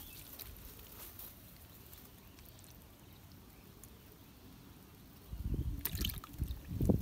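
Mostly quiet for about five seconds. Then low bumping and rustling, and a small fish splashing into a bucket of water near the end, the loudest splash at the very end.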